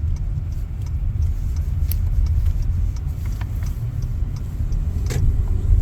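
Steady low rumble of a car, with a couple of faint short clicks.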